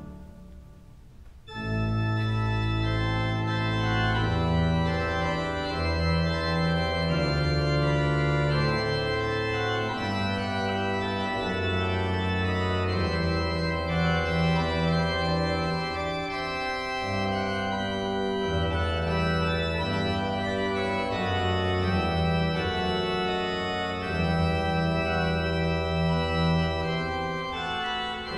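Harrison and Harrison pipe organ: a chord dies away in the cathedral's long reverberation, then about a second and a half in the organ comes back in with sustained chords in slow-moving counterpoint over held low pedal notes.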